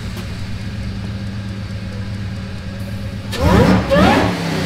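Car engine idling, then revved twice near the end, its pitch climbing quickly each time.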